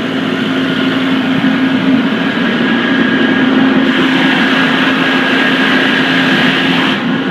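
Sullair 375 CFM portable air compressor running steadily with a loud, even drone.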